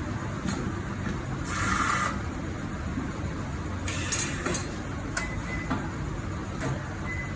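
Tyre-changing work with air tools: short bursts of compressed-air hissing and a few sharp metallic clicks and clinks over a steady low hum. The loudest burst comes about a second and a half in, and a cluster of shorter ones follows about four seconds in.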